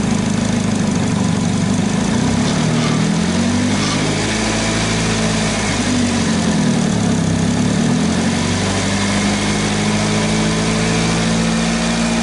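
2009 Saturn Aura engine running in drive with the wheels turning freely off the ground. Its pitch rises and falls a few times in the middle, then holds steady near the end.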